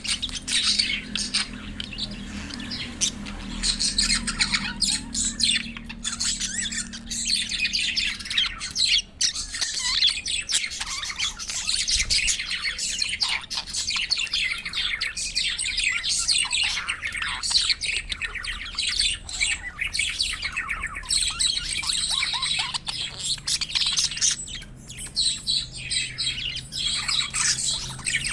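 Budgerigars chirping and warbling in a fast, continuous chatter of high squawks and tweets.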